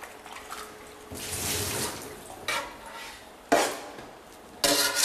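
A long-handled spoon stirring a large pot of goulash: scraping and clattering against the pot, with a sharp knock about three and a half seconds in and another near the end.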